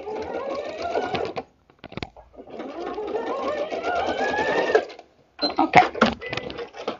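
Janome electric sewing machine stitching a short seam in two runs, its motor pitch rising as it speeds up, the second run longer. It is followed by a few sharp clicks and knocks near the end.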